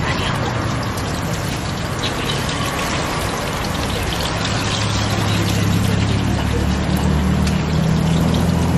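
An engine running steadily, a low hum that grows stronger about halfway through, over a constant background of noise.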